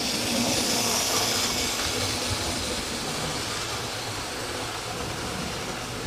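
Model railway steam locomotive and its coaches running along the track: a steady rolling rattle of small wheels on the rails with a motor whirring, loudest in the first couple of seconds as the train passes close.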